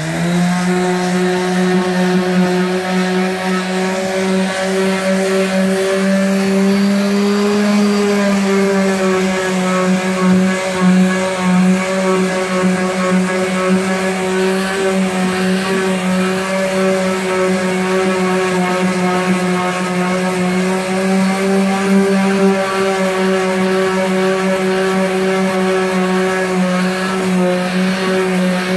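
Corded electric sander switching on and running steadily against a car's steel body panel, sanding paint and filler with a constant motor whine. Its pitch rises slightly about seven seconds in, then settles back as the pad is pressed on.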